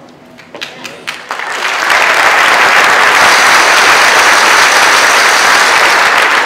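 Audience applauding: a few scattered claps build within about two seconds into loud, steady applause.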